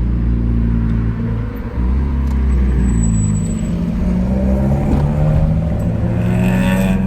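Car engine and exhaust note under way, with a brief drop in level about one and a half seconds in, as at a gear change, then pulling again with the pitch rising slightly.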